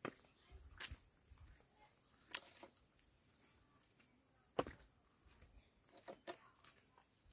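Faint outdoor ambience in hill forest: a steady high insect drone, with a few scattered sharp clicks.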